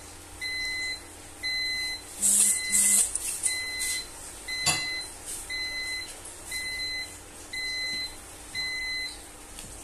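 A high-pitched electronic beep repeating about once a second, each beep about half a second long. Under it, a wire whisk stirs tapioca flour and coconut milk in a bowl, with a few louder scrapes about two to three seconds in and a single sharp click near the middle.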